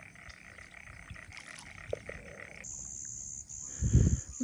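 Frogs calling in a flooded rice field, a steady pulsing chorus. About two and a half seconds in it gives way abruptly to a high steady whine, and a loud low thump comes near the end.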